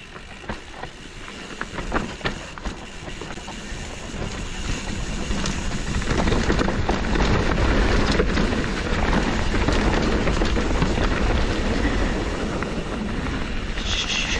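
Mountain bike riding down a steep dirt downhill section: a few sharp knocks and rattles in the first two seconds, then the rush of tyres on loose dirt and wind over the microphone builds and stays loud. A short falling squeal near the end.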